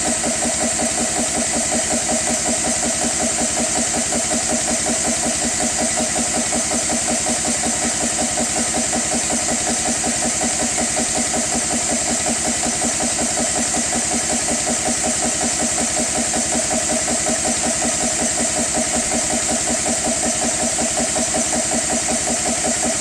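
GX CS3 high-pressure PCP air compressor running steadily under load while filling an air rifle's reservoir. Its piston pumps in a fast, even rhythm under a constant high hiss.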